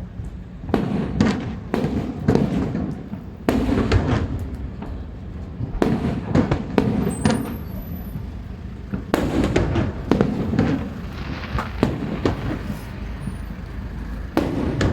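Aerial fireworks bursting one after another: clusters of sharp bangs, several in quick succession, over a steady low rumble.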